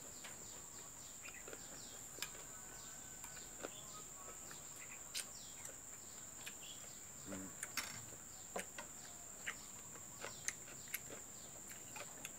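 Quiet eating at a table: a metal spoon clicking and scraping on a china plate, many short sharp ticks scattered through. Birds chirp in short falling notes, over a steady high-pitched insect drone.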